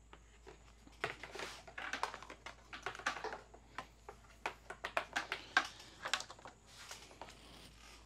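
Hands handling a heat gun and other tools: irregular clicks, taps and rustles. The heat gun is not yet running.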